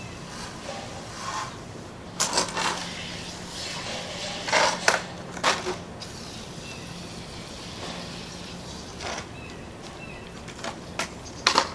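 Scattered clicks and clatters of plastic humidifier parts and tools being handled, a few at a time with pauses between, over a faint steady low hum.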